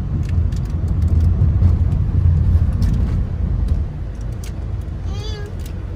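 Road and engine rumble inside a moving Honda car's cabin, heavier for the first few seconds and easing off about four seconds in. A short wavering whine is heard near the end.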